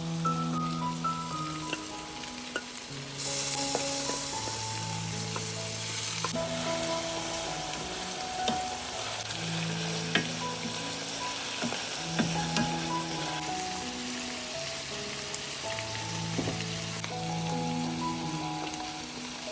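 Food frying and sizzling in a pan, the sizzle growing louder about three seconds in, with a few light clicks of a utensil stirring. Soft background music with slow held notes plays over it.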